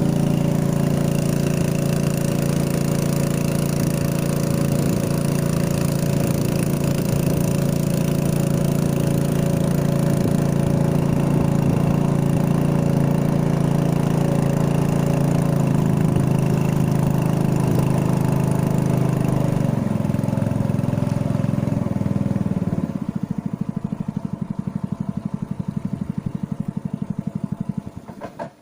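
Small engine running steadily at speed. It eases down about 20 seconds in, drops to a slow chugging idle a few seconds later, and shuts off just before the end.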